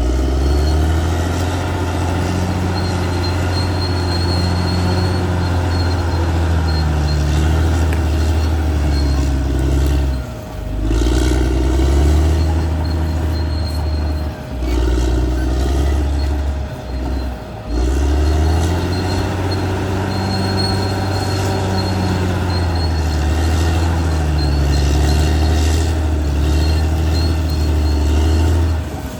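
Caterpillar D6R XL bulldozer's diesel engine working, its pitch rising and falling as the load changes. The sound drops away briefly a few times.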